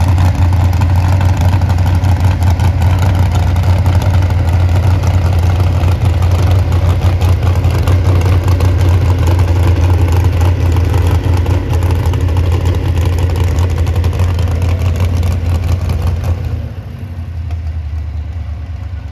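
Modified pulling truck's open-stacked engine running at low speed off the track, a loud, steady, deep rumble. It drops off noticeably about sixteen seconds in.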